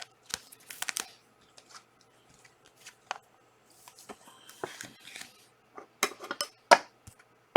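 Trading cards and their packaging being handled: a scatter of sharp clicks and taps with short stretches of rustling, the loudest clicks near the end.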